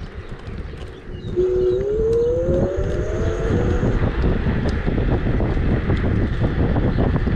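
Emove Cruiser electric scooter pulling away: its motor whine rises steadily in pitch for about two seconds as it gathers speed. From the same moment, wind buffeting the microphone and rolling noise grow loud and carry on to the end.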